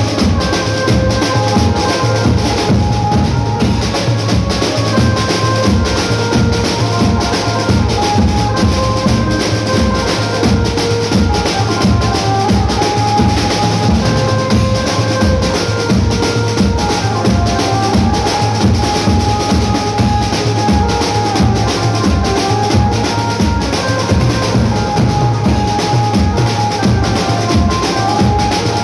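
Music with a steady drum-kit beat under a melody of held notes.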